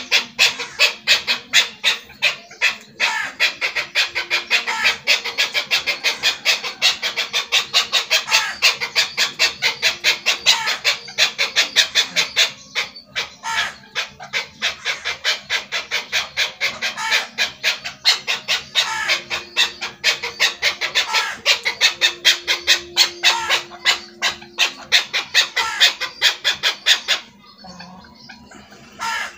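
Chukar partridge calling: a long rapid run of short, sharp clucking notes, several a second, that stops near the end.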